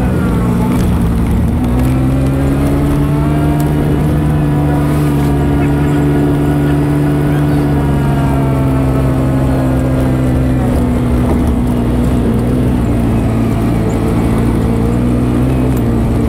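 ATV engine running steadily while the quad cruises along a dirt trail, heard from on board. Its pitch dips a little in the first second and then holds nearly level.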